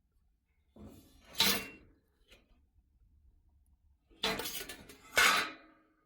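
Clinking and clattering of hard objects being handled, in two bursts of about a second each, a few seconds apart.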